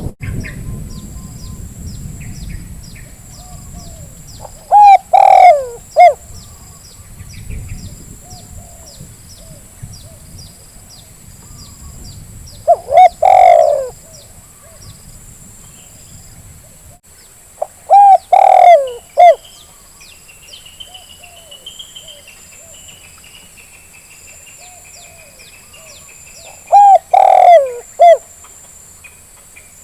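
Spotted dove cooing: four loud phrases of a few notes each, roughly every seven or eight seconds. Small birds chirp quickly and steadily behind it.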